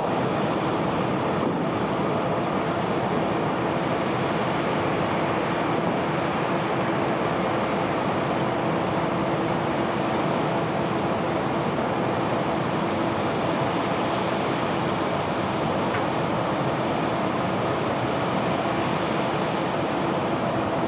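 Steady machinery drone from barge unloading equipment, a constant hum over an even rushing noise, with no separate knocks or impacts.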